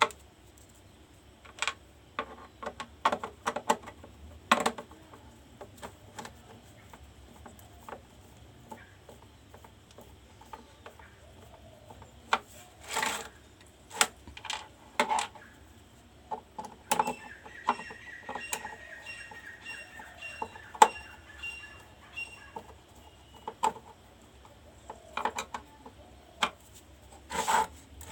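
Irregular clicks, taps and knocks of plastic and metal parts being handled and fitted inside an induction cooktop. For about five seconds in the middle, a thin, steady high tone sounds under the clicks.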